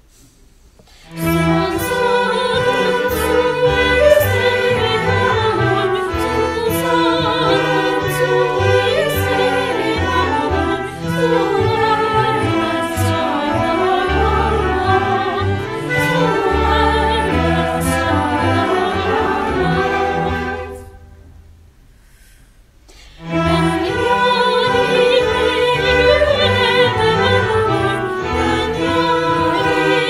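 Mixed choir singing a Turkish folk song (türkü) in a polyphonic arrangement, accompanied by a string orchestra of violins, cellos and double basses with a clarinet. The music comes in about a second in, breaks off for about two seconds after some twenty seconds, then resumes.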